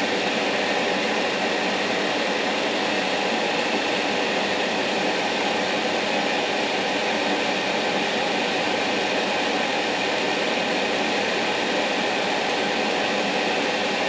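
Airbrush compressor and spray booth exhaust fan running, a steady, unchanging whir.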